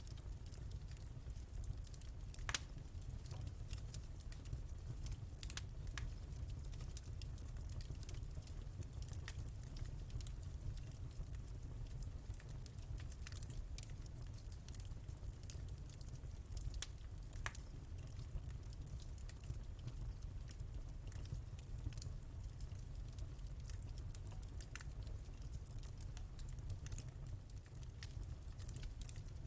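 Wood fire in a fireplace crackling, with scattered sharp pops and snaps over a steady low rumble; the loudest pop is about two and a half seconds in.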